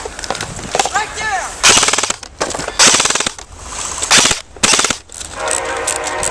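Airsoft electric guns firing on full auto in several short bursts, a rapid rattle of BB shots, about four bursts between roughly one and a half and five seconds in.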